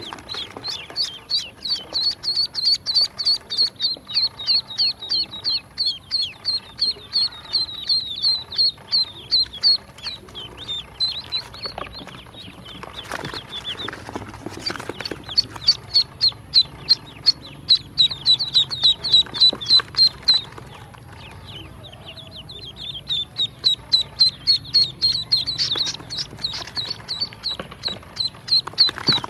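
Newly hatched ducklings peeping: quick runs of short, high-pitched calls several times a second from a group of chicks, easing off briefly twice before picking up again.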